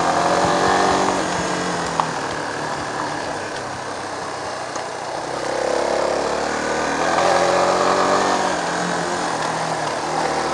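Yamaha Serow 225's single-cylinder four-stroke engine running while riding. The engine note eases off about halfway through, then swells and rises again as the throttle opens.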